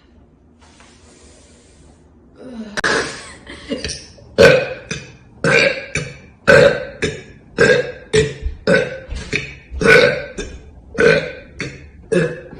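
A person burping: about two seconds in, one longer burp, then a rapid string of short burps, about two a second.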